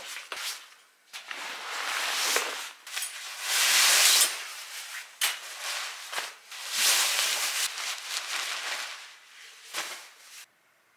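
A puffy sleeping bag's fabric rustling as it is handled, pulled out, shaken and spread over a drying rack. It comes in several long swells with short gaps, loudest about four seconds in.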